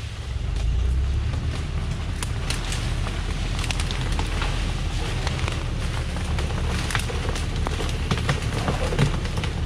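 Thaco Foland truck reversing over cut acacia branches: its engine pulls steadily under load, growing louder about half a second in, while branches and twigs crackle and snap under the wheels.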